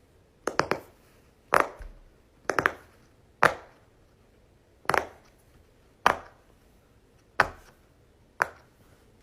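A fidget toy being snapped or clicked by hand: eight or so sharp snaps, roughly one a second, some coming in quick pairs or triples.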